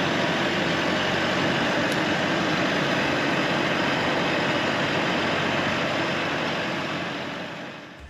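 LS MT573 tractor's diesel engine running steadily, fading out near the end.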